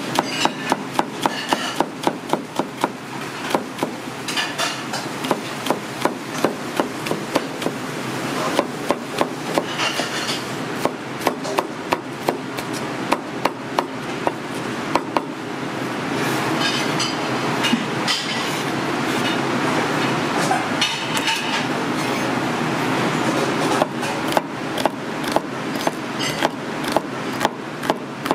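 Busy restaurant kitchen work: rapid, irregular sharp metal knocks and clanks, several a second, over a steady rushing noise.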